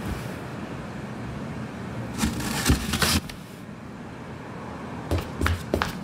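Cardboard box flaps pulled open, a rustling of cardboard lasting about a second, about two seconds in, over a steady background rumble like distant traffic. Near the end come a few quick footsteps.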